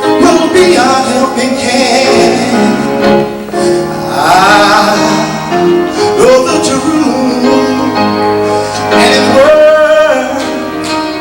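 Gospel singers performing with instrumental accompaniment, holding long notes that waver in pitch.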